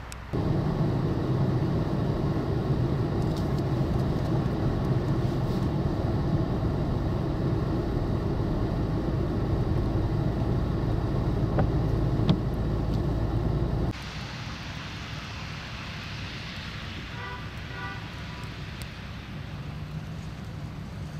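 Steady motor-vehicle traffic noise, engine and tyre rumble on a snow-covered road. It cuts off suddenly about two-thirds of the way through to quieter outdoor sound, where a short run of high beeps comes near the end.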